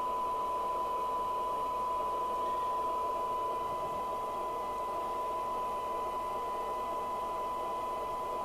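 Steady 1 kHz test tone from the Maxcom 4E FM CB radio's loudspeaker over a bed of hiss: the receiver is demodulating a signal generator's tone-modulated test signal during receive alignment and SINAD measurement.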